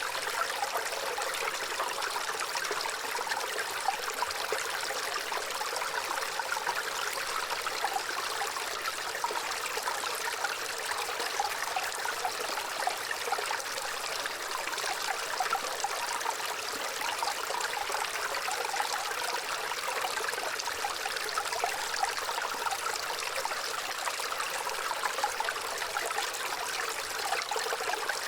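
Running water flowing and trickling steadily, a continuous splashy hiss with many small bubbling flickers and little low end.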